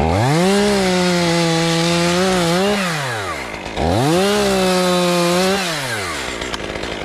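Chainsaw revved to full speed twice: each time it climbs fast, holds a high steady pitch for about two seconds, then winds back down.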